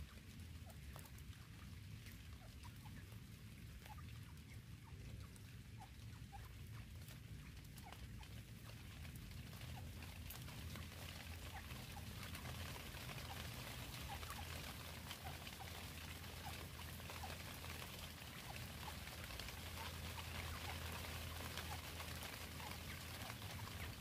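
Light rain pattering and dripping on leaves and grass, a faint hiss full of small ticks that grows a little louder after about ten seconds, over a low steady rumble.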